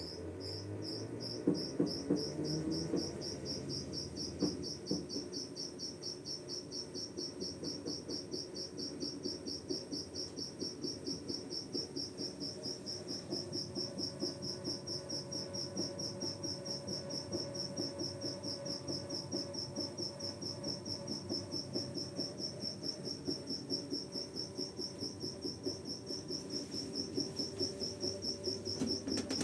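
Sharp ES-GV8J top-loading washing machine in its spin cycle, running with a high-pitched squeak that pulses over and over and a regular light knocking, over a motor hum that rises in pitch. The squeal and the clatter come only in the spin and are taken for a fault in the new machine.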